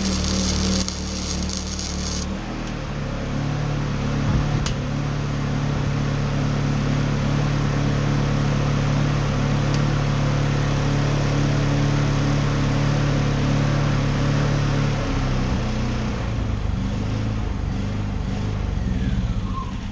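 Honda EU2000i inverter generator running under load from an arc welder, its engine surging a little, with the pitch shifting about two seconds in and again near the end, under the steady crackle of the welding arc. The generator is handling the welder's draw without being overloaded. Both sounds cut off at the very end.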